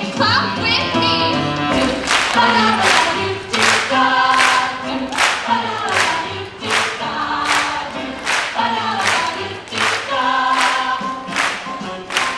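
A cast of young performers singing together in chorus over a musical backing track with a steady beat about twice a second: a number from a junior stage musical.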